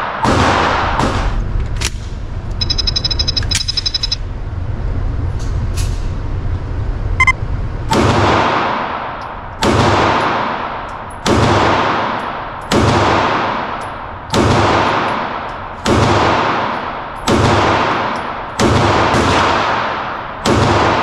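Glock pistol fired in slow, steady single shots, about one every one and a half seconds, nine in all, each one echoing in the hard-walled indoor range. Before the shooting starts, electronic beeping sounds briefly twice.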